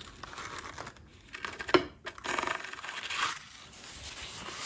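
Paper towel rustling and crinkling as it is rubbed over greasy gears inside a Singer 301 sewing machine, with one sharp tap a little under two seconds in.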